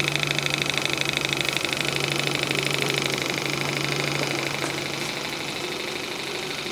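Graham TVR1A twin-cylinder model steam engine running on steam, with a rapid, even exhaust beat that softens after about four seconds.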